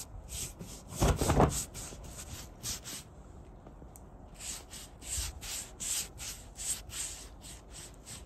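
Silicone pastry brush swishing over a thin sheet of rolled dough in quick repeated strokes, with a louder, heavier rub about a second in.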